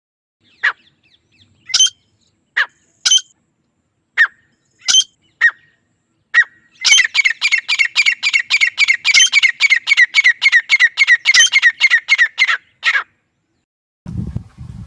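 Grey francolin calling: a handful of sharp single notes spaced about half a second to a second apart, then a fast, even run of loud repeated notes, about five a second, lasting some six seconds before stopping. A low rumbling noise starts near the end.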